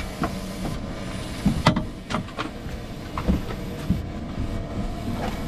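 Low mechanical rumble around a boat whose turbo diesel engine has just blown and is pouring smoke. Scattered knocks and clunks sound at the engine compartment, loudest about a second and a half in.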